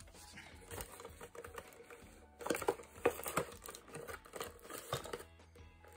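Plastic toy packaging crinkling and clicking as it is handled and cut open, loudest for about a second in the middle.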